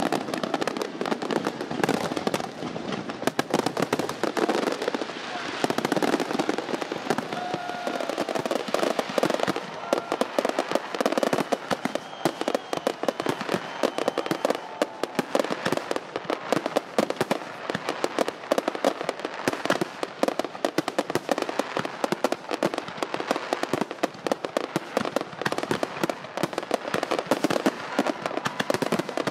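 Fireworks going off continuously: a dense, rapid crackle of overlapping pops and bangs with no pause.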